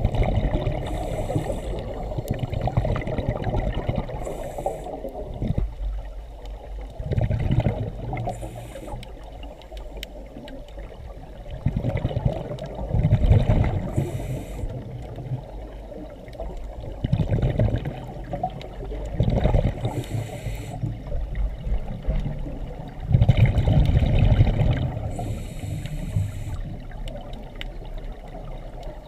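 Scuba regulator breathing heard underwater: bursts of exhaled bubbles every few seconds, with short hisses of inhalation between them.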